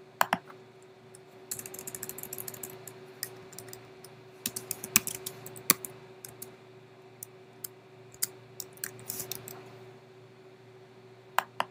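Typing on a computer keyboard: a quick run of keystrokes, then scattered single strokes, with a pair of sharp clicks just after the start and another pair near the end.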